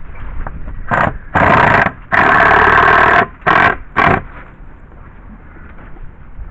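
Power drill driving a screw into a wooden board in bursts: two short runs, a longer run of about a second, then two short pulses as the screw is seated.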